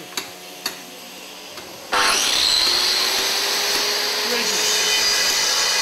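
After a few faint clicks, a handheld power saw (an angle grinder with a large cutting disc) starts suddenly about two seconds in, whines up to speed and runs steadily as it cuts into a block of Carrara marble to rough out a sculpture.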